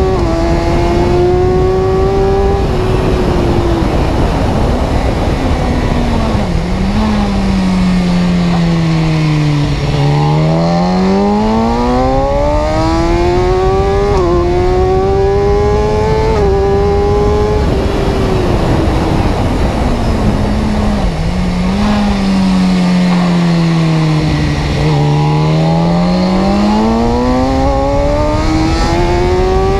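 A vehicle engine slowing and speeding up twice over. Its pitch falls smoothly for several seconds, then climbs again in short steps, dropping a little at each gear change.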